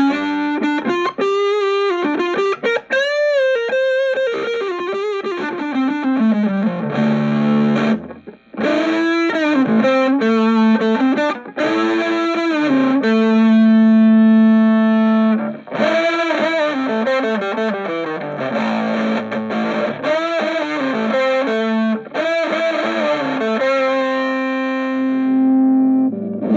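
Electric guitar on the neck pickup, played through an Orange Micro Terror hybrid amp (valve preamp, solid-state power stage), distorted by the amp's own gain. It plays a lead line with string bends, vibrato and several long held notes.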